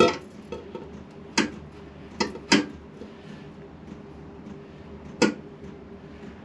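A handful of sharp metal clinks and knocks, with gaps of about a second or more between them, the loudest right at the start: tools and parts being handled during motorcycle rear-wheel work. A faint steady hum runs underneath.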